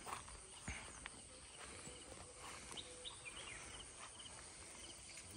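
Quiet outdoor background with faint, repeated high chirps and a few soft knocks in the first second.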